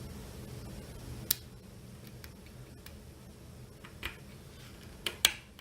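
A few sharp small clicks of hand work on the e-bike's wiring, such as cutting zip ties and handling plastic connectors. The loudest comes about a second in and a quick pair near the end, over a faint low hum.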